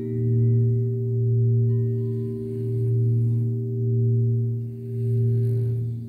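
Crystal singing bowls ringing: a deep sustained tone that swells and fades about once a second, with higher tones struck in at the start that slowly die away.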